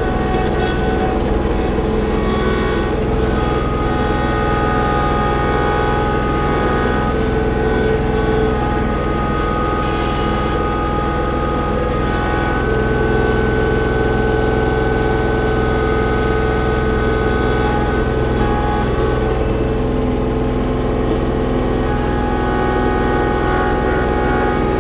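Kubota LX2610 compact tractor's three-cylinder diesel engine running steadily while the front-loader grapple handles a log, with a steady whine whose pitch shifts every few seconds.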